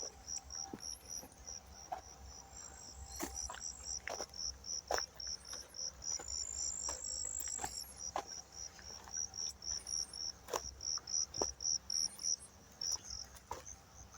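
A cricket chirping in a steady run of short, high-pitched pulses, about three a second, which stops near the end. Sharp clicks and taps are scattered through it.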